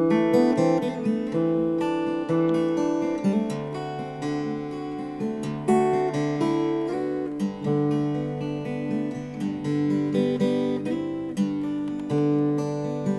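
Background music: an acoustic guitar plucking and strumming a steady run of notes.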